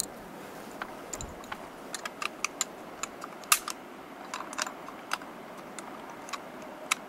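Rifle being reloaded: light, irregular clicks and taps of cartridges being handled and loaded.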